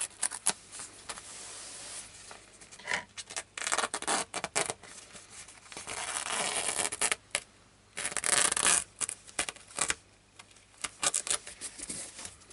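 A blade cutting and tearing through the fabric cover of a body-armour panel in a series of strokes, some over a second long, with shorter scratchy cuts and fabric rustling between them.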